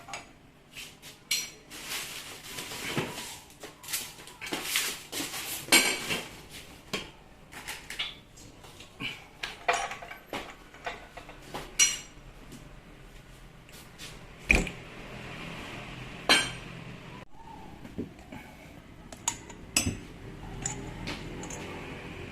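Metal parts of a Makita M8600 rotary hammer clinking and knocking against each other and against hand tools while it is worked on by hand: irregular sharp clicks and taps, some with a short metallic ring.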